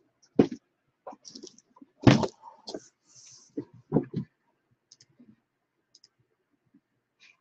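Cardboard Bowman Mega Box card boxes being handled and set down on a table. There are sharp knocks about half a second, two seconds and four seconds in, with light scuffs and rustles between, then only faint ticks.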